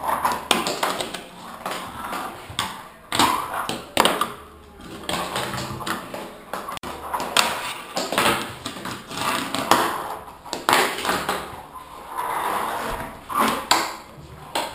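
A fingerboard rolling over wooden ramps, its small wheels rumbling, with repeated sharp clicks and knocks as the board pops, hits obstacles and lands.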